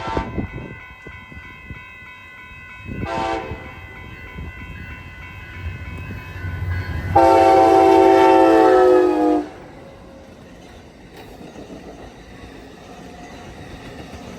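Amtrak Siemens SC44 Charger locomotive sounding its horn as the train passes: a blast ending right at the start, a short blast about three seconds in, and a loud, longer blast of about two seconds starting around seven seconds, over the rumble of the train.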